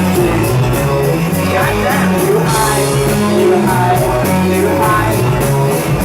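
Live indie rock band playing: bass, drums and guitar at full volume with a steady beat, likely with singing.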